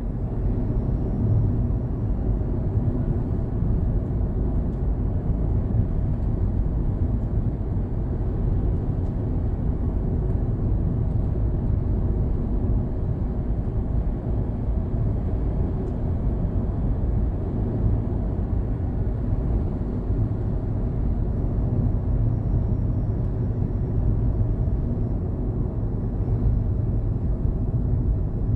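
Daihatsu Hijet Cargo's small three-cylinder kei engine running steadily as a low, even rumble, without revving, as the van is checked for an abnormal engine noise.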